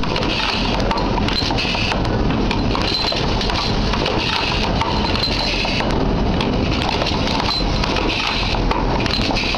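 Automated assembly machine running: a steady mechanical din with many small, irregular clicks and clinks of metal parts moving along its vibratory feed track, over a constant low hum.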